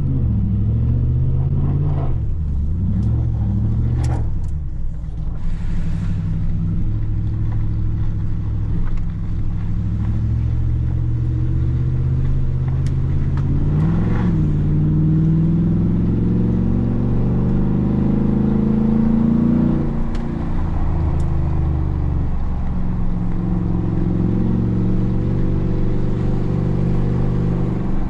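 Ford SVT Raptor's 6.2-litre V8 revving and pulling under throttle, with several quick rises and falls in revs in the first few seconds and a short blip about 14 seconds in. The revs then climb steadily and drop off suddenly about 20 seconds in, before the engine runs on evenly.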